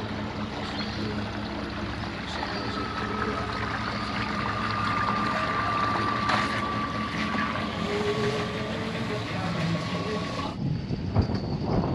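Fishing boat's inboard engine running slowly as the boat comes alongside a dock: a steady low hum, with a thin whine joining about two seconds in. The sound cuts off abruptly near the end.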